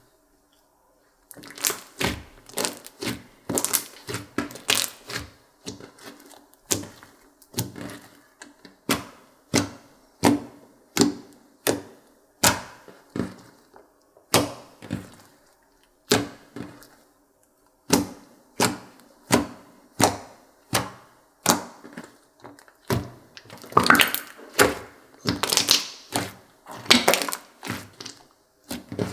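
Clear slime mixed with makeup being pressed, folded and stretched by hand, giving sharp sticky pops and clicks about once or twice a second. The pops grow louder and come in quick clusters near the end.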